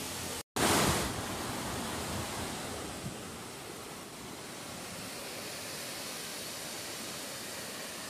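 Steady rushing hiss of a waterfall pouring over rocks. A brief louder surge of noise comes about half a second in, just after a short dropout.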